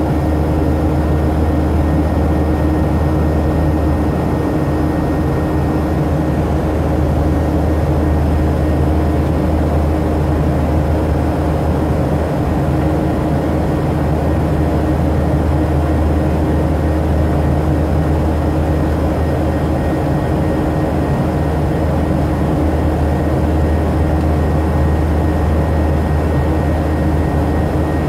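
Airliner cabin noise during the climb after takeoff: a steady deep drone of engines and airflow, with a few faint constant hums on top.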